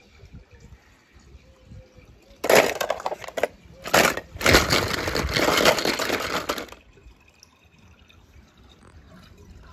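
Splashing water, a loud noisy burst of about four seconds broken by two short gaps.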